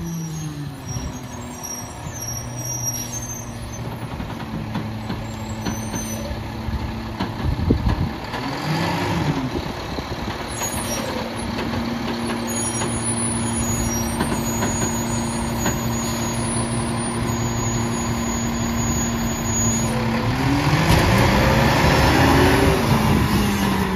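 Mack LEU garbage truck's engine running as it drives up, its pitch rising and falling twice as it speeds up and slows, with a long steady stretch between. A sudden loud thump about eight seconds in.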